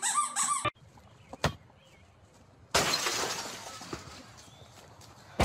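A quick run of squeaks, then a sudden shattering crash of something breaking about three seconds in, dying away over about two seconds.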